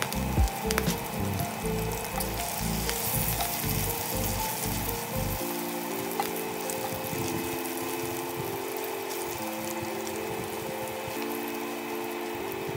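Minced garlic sizzling in hot oil in a cast-iron skillet, stirred with a silicone spatula in the second half, over background music.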